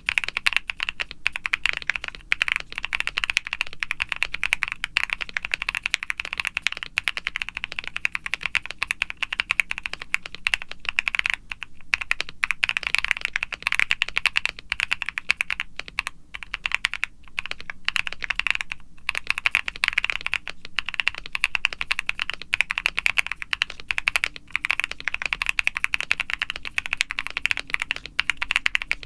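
Continuous fast typing on a CreateKeebs Luminkey75 aluminum mechanical keyboard with a polycarbonate plate, full case and plate foam, lubed Akko Creamy Lavender Pro tactile switches and PBT keycaps. The keystrokes come in a dense, unbroken run with a few short pauses.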